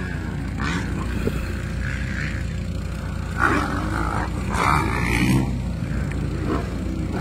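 Motocross dirt bike engines running and revving, a steady rumble with a couple of louder revs about halfway through.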